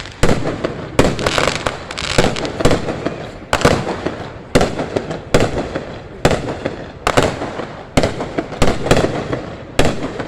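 Fireworks going off in a rapid series of sharp bangs, one or two a second, with smaller crackles between them.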